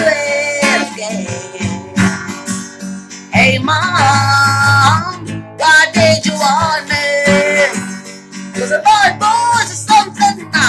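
A woman singing while strumming a steel-string acoustic guitar, her voice carrying the melody over steady chords.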